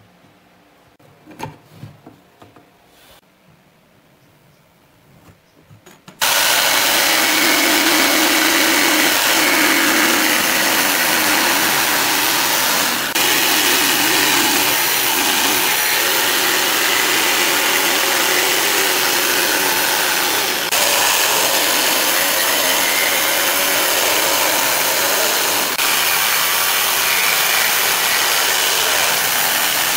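A few faint knocks. Then, about six seconds in, a Dong Cheng DMQ65 electric jigsaw cuts steadily and loudly through a wooden board, with a couple of brief dips.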